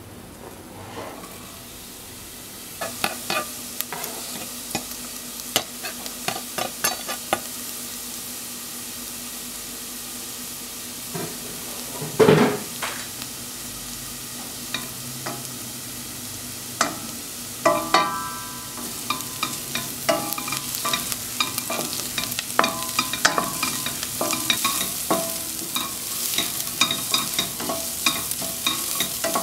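Diced onion frying in oil in a stainless steel pot, sizzling, while a wooden spatula scrapes and taps against the pot. There is one loud knock about twelve seconds in, and the sizzling grows louder and busier in the last third.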